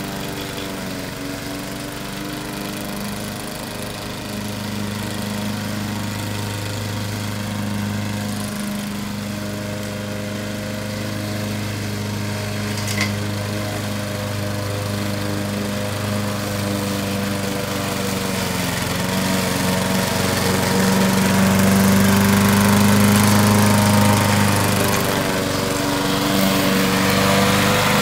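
Lawn mower engine on a remote-controlled mower robot running steadily, its pitch wavering and dipping briefly partway through, getting louder in the second half as it comes closer. A single sharp click about halfway through.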